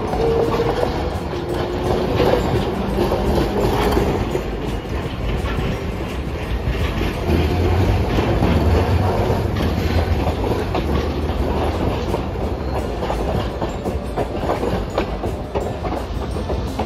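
Hiroshima Electric Railway (Hiroden) articulated trams running past on street track, one after the other, with a steady rumble and a faint whine over the first couple of seconds.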